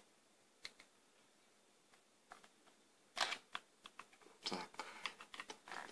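Plastic housing of a cheap USB speaker bar being pried open at its snap-fit latches with a small screwdriver: a couple of faint clicks, then from about three seconds in a run of sharp plastic clicks and snaps.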